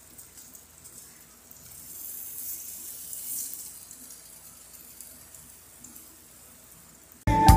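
Shrimp deep-frying in hot oil: a steady sizzle and hiss that swells for a couple of seconds in the middle. Music starts abruptly near the end.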